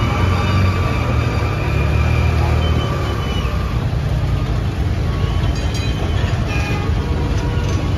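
Old electric tram passing at close range: a steady low hum with thin high tones over it for the first few seconds. From about halfway on comes a run of short clicks and knocks.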